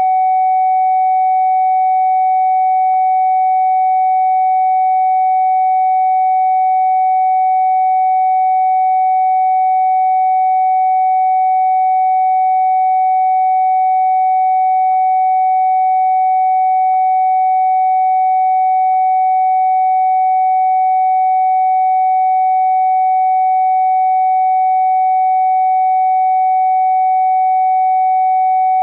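Steady electronic sine-wave test tone held at one mid pitch, with faint higher overtones, the kind of tone played to check a phone speaker for crackling or distortion.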